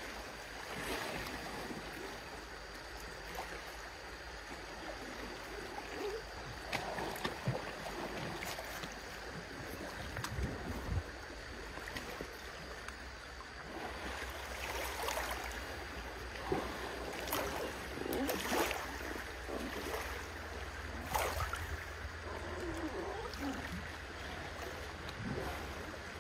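River water splashing and sloshing as two Asian elephants wrestle and play in it: a steady wash of moving water with irregular louder splashes.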